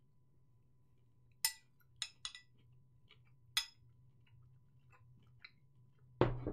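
A metal spoon clinks against a bowl, four short ringing clinks in the first half with a few fainter taps after. Near the end there is a single louder, brief burst of noise.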